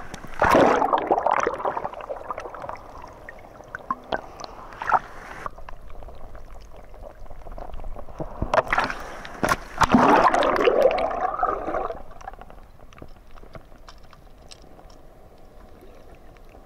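Water splashing and gurgling around a camera at the waterline as it dips in and out of the surface. There are loud surges of sloshing about half a second in, again around four to five seconds in, and from about eight to twelve seconds in, then a quieter, muffled underwater wash.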